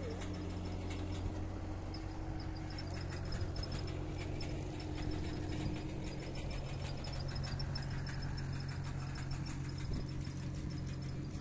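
Steady low hum of an engine running, with a faint rapid high ticking over it.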